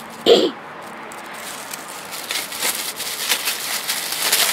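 Tissue paper crinkling and rustling in the hands as a wrapped package is opened, the crackling getting busier in the last couple of seconds. A short vocal sound comes right at the start.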